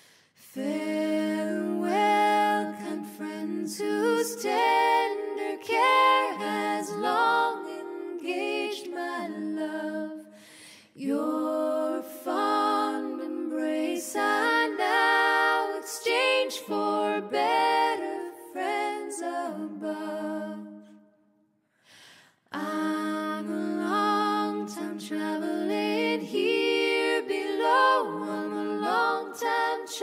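Women's voices singing a cappella in close harmony, in long phrases with a short break about eleven seconds in and a brief silence a little past twenty seconds.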